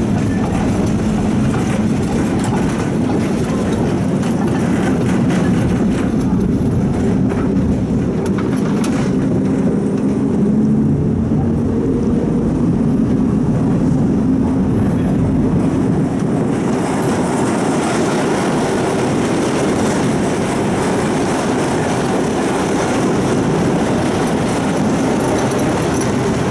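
A tram running along its rails, heard from inside the car: a steady rumble of wheels on track with a low hum. The noise grows brighter and harsher about two-thirds of the way through.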